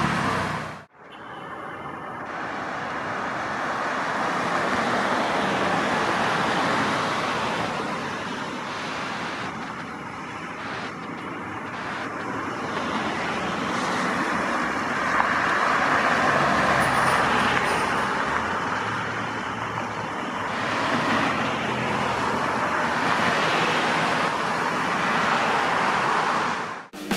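Road traffic: vehicles driving past with steady engine and tyre noise that swells and fades as they go by. The sound drops out briefly about a second in.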